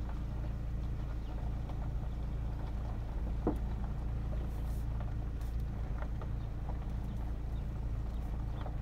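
Car engine running at a crawl, heard from inside the cabin: a steady low hum, with a few faint clicks and one sharper click about three and a half seconds in.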